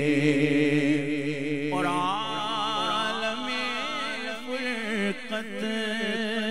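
A male naat reciter singing unaccompanied into a microphone, drawing out long ornamented notes with a wavering pitch between the words of the verse. A new melodic phrase begins about two seconds in.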